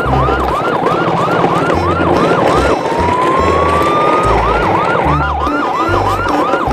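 Siren yelping, a quick sweep repeating about three times a second, which switches near the middle to one slow rising wail for about a second and a half and then returns to the fast yelp; low stepped bass notes run underneath.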